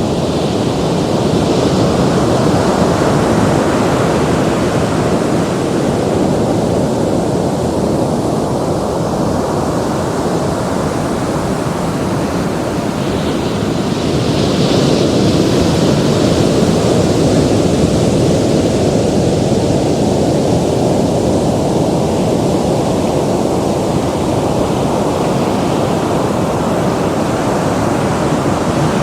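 Ocean surf: a steady wash of breaking waves that swells twice, a couple of seconds in and again around the middle.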